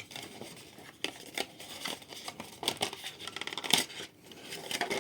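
Charger packaging being handled and opened by hand: an irregular run of rustling, crinkling and small clicks.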